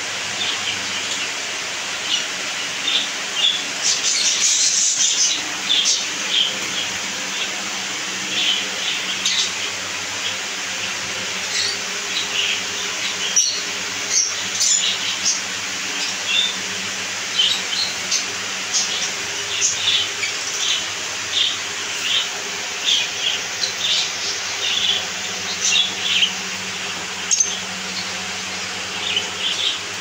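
Many small caged parrots chirping, with short high chirps overlapping throughout over a steady low hum.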